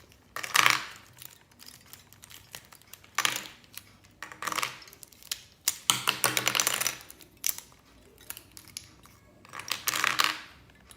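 Plastic pieces of a 3x3 Rubik's Cube being pulled out one after another and set down, clicking and clattering in several short bursts.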